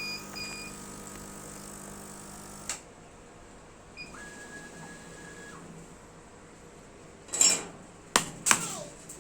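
Steady electrical hum from the CO2 laser cutter's equipment cuts off with a click about three seconds in. Electronic beeps sound, then one longer beep. Near the end, a child's voice calls out a few times, loudly.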